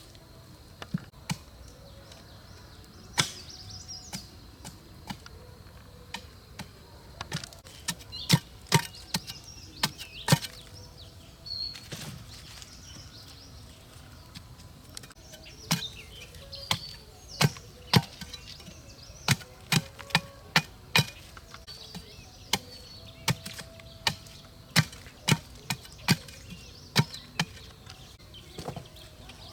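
Chopping wood with a blade: a long series of sharp, irregular strikes, some close together and some a second or more apart, with faint high chirps in the background.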